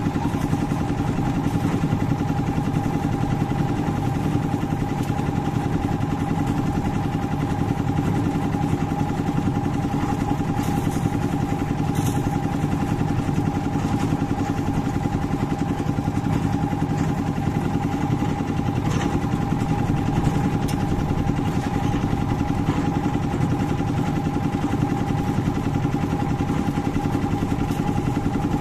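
Engine of a drum-type concrete mixer running steadily as it turns a batch of footing concrete, with a few faint clicks from time to time.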